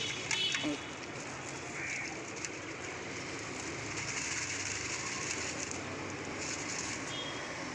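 Steady outdoor background noise with a few short, high bird calls, near the start and again near the end.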